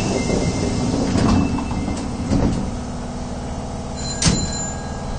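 Subway train heard from inside the carriage as it pulls away after the doors close: a low running rumble with a few sharp clunks from the car and the track.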